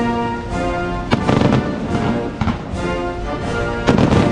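Fireworks display shells bursting in a few sharp bangs: a couple about a second in, one midway and the loudest cluster near the end. Music plays steadily underneath.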